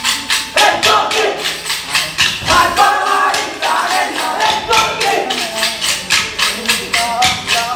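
Kolkali dancers' wooden sticks clacking together in a steady rhythm, about four strikes a second, with a sung Kolkali song over them.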